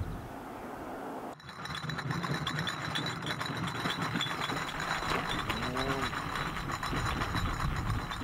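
Wheelbarrow rolling over gravel, its wheel and frame rattling and clicking rapidly, starting about a second and a half in.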